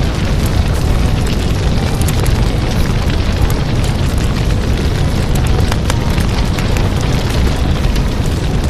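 Loud, steady rumbling noise spread across all pitches, heaviest in the bass, with faint scattered clicks through it.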